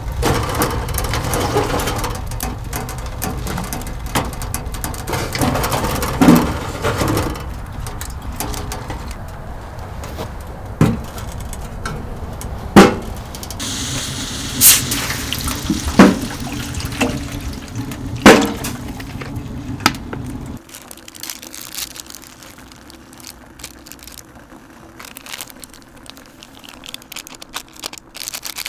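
Wood fire burning in a small homemade stainless-steel stove: a steady low rumble with loud, sharp pops and knocks every second or two. About halfway there is a short hissing pour of water into a steel pan. After a sudden drop in level, quieter water in the pan on the stove top with faint ticking bubbles.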